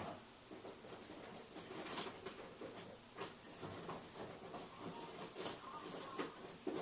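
Faint rustling with scattered light clicks and taps: someone rummaging through things while searching for a toy figure.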